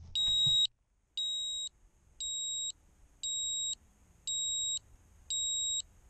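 Downed FPV racing quadcopter's lost-model buzzer beeping: a high beep about half a second long, repeated about once a second, six times, marking where the crashed drone lies.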